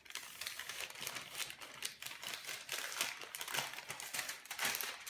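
Sheet of baking parchment rustling and crinkling as it is peeled off a slab of butter and lifted away: a rapid, irregular crackle.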